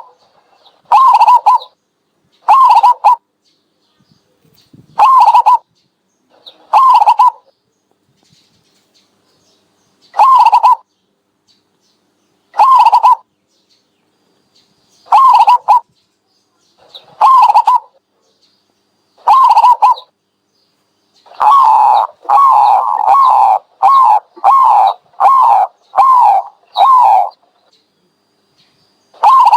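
Dove calling loudly: short calls with a falling pitch, repeated every one to three seconds, then a quick run of about ten calls in a row near the end.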